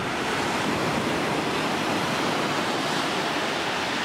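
Ocean surf: small waves breaking and washing up a sandy beach in a steady hiss.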